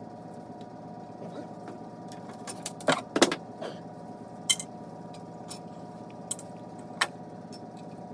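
A few sharp clinks and knocks of metal engine parts and hand tools being handled during a VW air-cooled engine teardown, the loudest about three seconds in, over a steady background hum.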